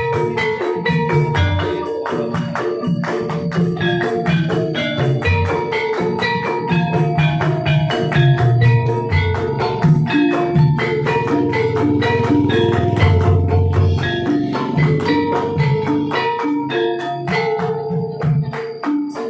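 Gamelan ensemble playing: metal keyed instruments struck with mallets in a dense, even run of notes, with drum strokes beneath.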